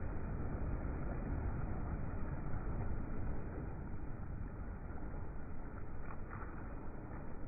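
Sea waves washing: a steady rushing noise, heaviest in the low end.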